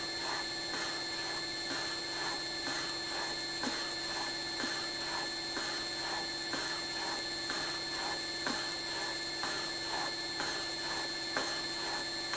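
Bridgeport slotting head cutting a keyway in a steel motor coupler: a steady motor whine with its ram stroking the cutter up and down at about two strokes a second.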